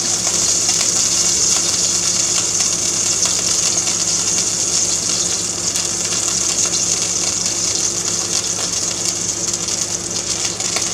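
Air conditioner running: a steady, unbroken hum with a hiss of moving air.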